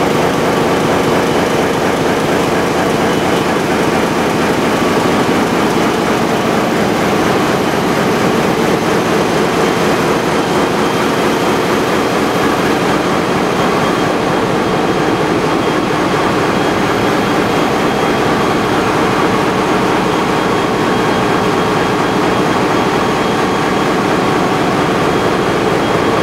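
Loud, steady engine-room noise from a Great Lakes freighter's diesel machinery running: a dense, even drone with faint high whines on top that holds at one level throughout.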